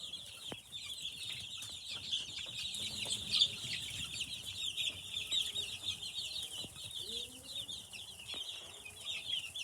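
A brooder flock of young chicks peeping continuously, many short high-pitched cheeps overlapping.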